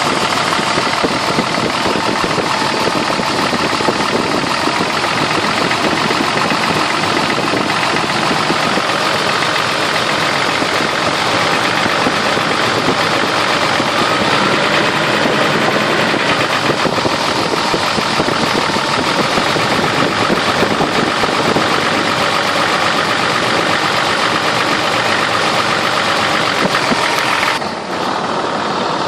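Toyota 3F-E straight-six petrol engine idling with a knocking noise from the engine, running steadily with a brief dip near the end.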